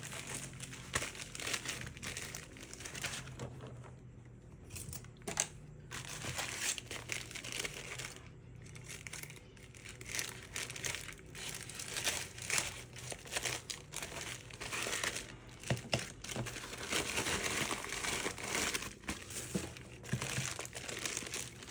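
Packaging crinkling and tearing as a parcel is unwrapped by hand, in irregular rustling bursts with short pauses.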